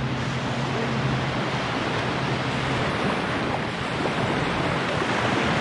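Waves breaking on the shore, with wind on the microphone: a steady, even rush of surf and wind. A low steady hum runs under it for the first three seconds or so.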